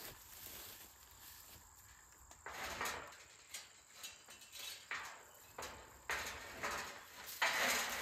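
Rustling footsteps in dry grass and light metal rattles and clicks as the door of a steel hog trap is handled and set, with insects chirring faintly underneath. The rattling grows louder near the end.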